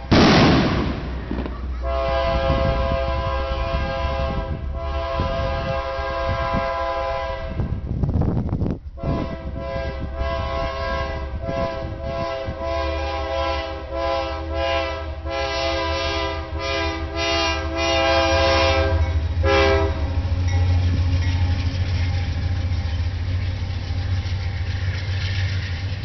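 Ferromex freight locomotive's multi-chime air horn sounding a long chord, then a quick series of short blasts in a horn show. After that the diesel locomotive and train rumble past.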